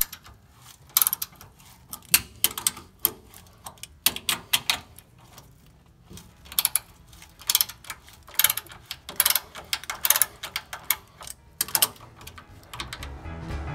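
A 7/8-inch ratcheting box-end wrench clicking in quick bursts, stroke after stroke, as it backs off the rear spring nuts on a Ford Model A. The clicking stops near the end as music comes in.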